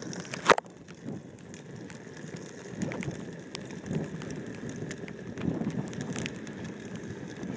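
Steady rain hiss on a wet path, with one sharp knock about half a second in.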